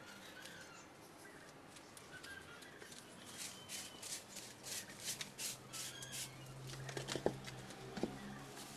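Leaves and stems of garden plants rustling as they are handled, in a string of short, scratchy swishes that get busier in the middle, with a couple of sharp clicks near the end.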